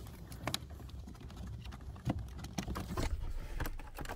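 Irregular light clicks, taps and rustling of hands feeding a wiring harness behind plastic dashboard trim, over a low rumble.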